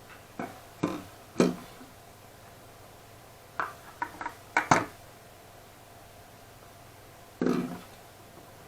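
Knocks and clicks from handling the parts of a graphics card: three in the first second and a half, a quick run of four or five about four seconds in, and one more, duller knock near the end.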